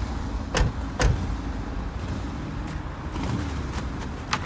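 Low steady rumble of a vehicle engine running, with two sharp knocks about a second in and another just before the end.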